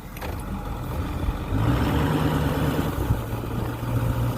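A vehicle's engine running steadily at low revs, growing louder about a second and a half in as it picks up.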